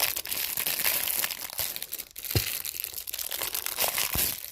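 Plastic film wrapping crinkling and rustling as hands work a drinking bottle out of it. A couple of brief dull knocks come about halfway through and near the end.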